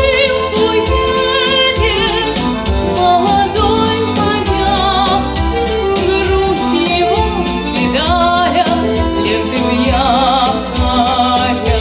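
A woman singing a song with vibrato into a microphone, over instrumental accompaniment with a steady beat.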